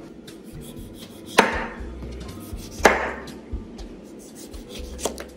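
Kitchen knife cutting through limes onto a cutting board: two sharp chops about a second and a half apart, then a light tap near the end.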